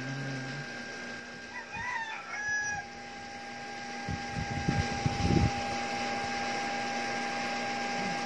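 A rooster crowing about two seconds in, over a steady electrical hum. A cluster of low thumps follows around four to five seconds in.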